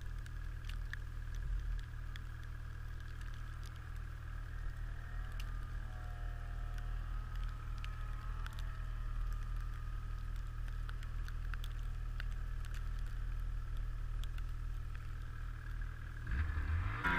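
Snowmobile engine idling low and steady in deep snow. Partway through, a second snowmobile engine is faintly heard revving up and down.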